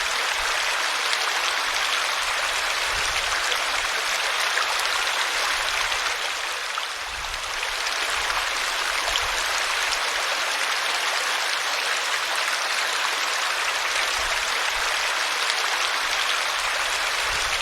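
Small waterfall splashing and rushing steadily over tree roots, with a slight lull about seven seconds in.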